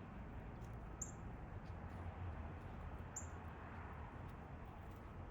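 Two short, high bird chips about two seconds apart, over a steady low background hiss.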